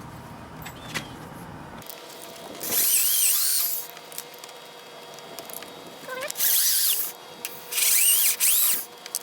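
A handheld power tool cutting into a plastic motorcycle fairing to enlarge a hole, in three short bursts of about a second each. The pitch sweeps up and down as the tool bites.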